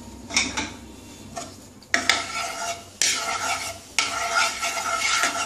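Wooden spatula scraping around a non-stick kadai, spreading mustard oil over the pan. A light knock comes first, then three scraping strokes of about a second each, starting about two seconds in.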